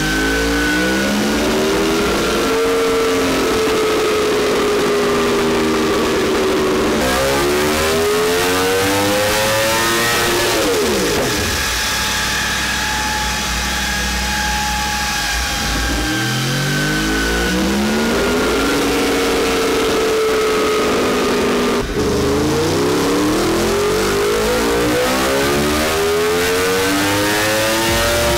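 Yamaha R1M's crossplane inline-four engine running on a rear-wheel dyno during fuel mapping, revving up in long sweeps that level off and hold a steady speed before climbing again, with the revs falling away once about ten seconds in.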